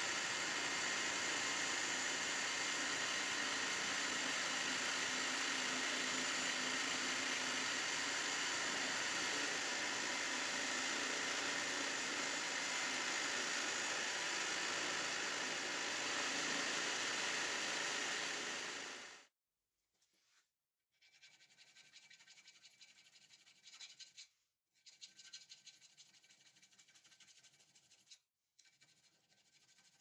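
A bench drill running steadily as its bit cuts into a brass hex bar, stopping abruptly about two-thirds of the way through. Then comes the much quieter scrape of a hand file on a small brass piece held in a vise, in a few stretches with short breaks.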